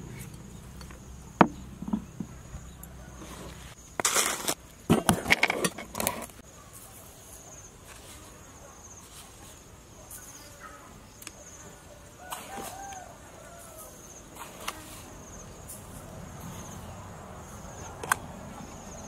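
A thin, high insect drone comes and goes in the background while a spoon and plastic containers clink and scrape as seasoning is added to a salad bowl. A cluster of loud scraping and rustling comes about four to six seconds in, with sharp clicks now and then.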